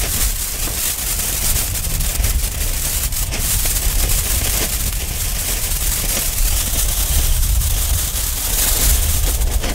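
Firework fountain (Fire Goddess Vulkan) burning, a steady hiss thick with fine crackling as it throws sparks and red stars, over a low rumble.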